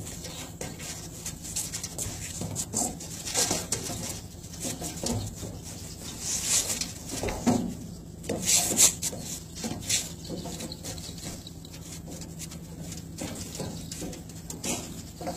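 Irregular scuffs and taps of feet stepping and shuffling on a deck during shadow boxing, a few louder ones past the middle, over a steady low hum.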